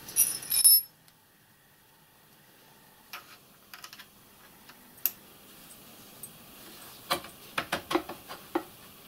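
Metal-on-metal clinks and knocks as a metal adapter plate is handled and fitted around a milling machine's quill. A bright, ringing clatter comes in the first second, then scattered light clicks, then a quick run of about six sharper knocks near the end.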